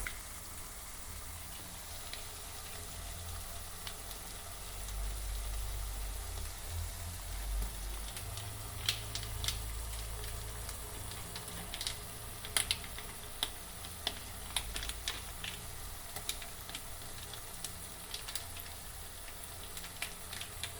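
Onion, tomato and green-chilli masala with ginger-garlic paste frying in hot oil in a pan: a steady sizzle, with scattered crackles and pops from the middle on.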